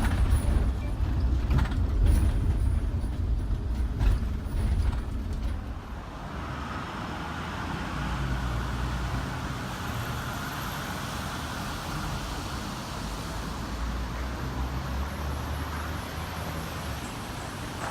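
Vehicle noise: a heavy, uneven low rumble with a few knocks for about the first six seconds, then a steadier, quieter rumble with a hiss.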